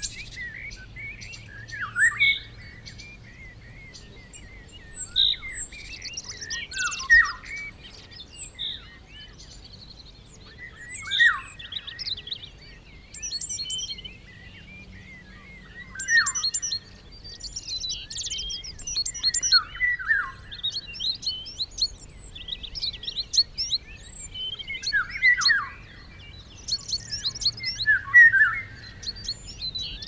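Several songbirds singing at once, a dense chorus of overlapping chirps and trilled phrases, with a louder song phrase sweeping down in pitch every few seconds.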